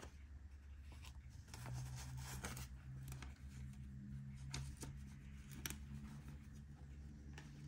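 Paper banknotes rustling faintly as a handful of US bills is sorted and counted by hand, with scattered soft crisp ticks of the notes being flicked and shifted, over a low steady hum.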